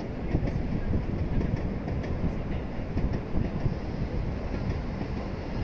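JR electric train passing on the tracks below: a steady rumble of wheels on rail, with faint clicks over it.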